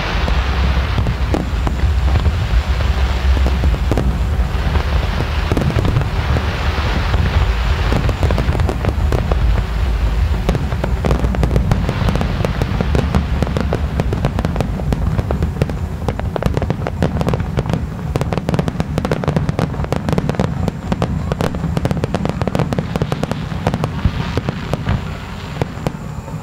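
Aerial fireworks display: continuous deep booms of shells bursting overhead, with hissing bursts in the first several seconds. Rapid crackling grows dense about halfway through.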